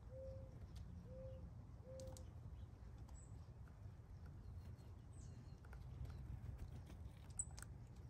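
A dove cooing: three short low coos about a second apart. Faint high chirps and scattered light ticks follow, with one sharper tick near the end.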